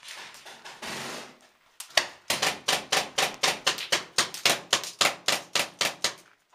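Paintball markers firing a rapid string of shots, about five a second, laying down cover fire. A short stretch of scuffling noise comes first.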